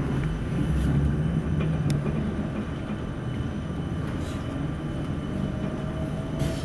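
Class 455 electric multiple unit heard from inside a coach as it moves slowly away from a platform: a steady rumble of the wheels and running gear with a few faint clicks. A faint whine rises slightly in pitch over the last few seconds.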